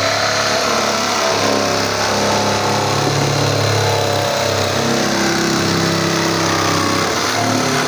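Electric jigsaw (Sencan) sawing through the top of a blue plastic drum, its motor running steadily while the reciprocating blade cuts the plastic.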